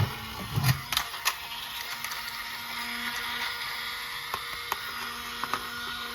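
Scattered light clicks and taps over a faint steady hiss, a few close together near the start.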